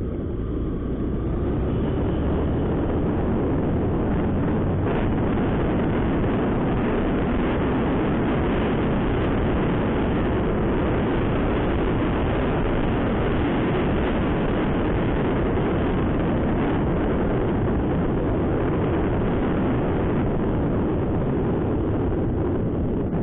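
Steady rush of wind and engine noise from a Honda SP125 motorcycle being ridden through traffic, an even, unbroken roar of wind buffeting the microphone.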